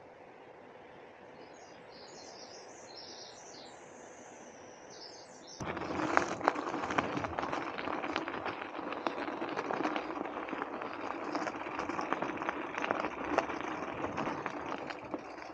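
Birds chirping. About five and a half seconds in, a sudden, much louder rush of crackling noise starts, thick with short clicks: a mountain bike rolling over a dirt trail, its tyres crunching and the bike rattling.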